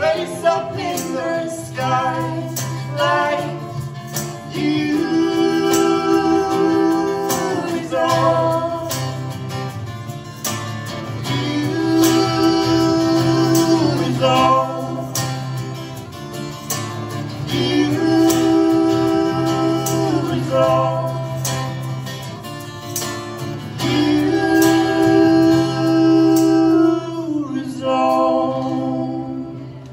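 A man and a woman singing together in harmony over a strummed acoustic guitar, with a tambourine struck along in time. The song closes on a long held note near the end.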